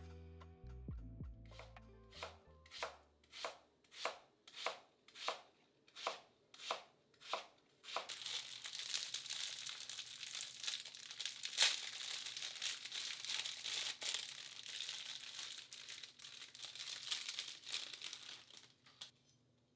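Plastic bags of mushrooms being opened by hand: thin plastic film crinkling and tearing for about ten seconds. Before it, a run of short regular taps, about two a second.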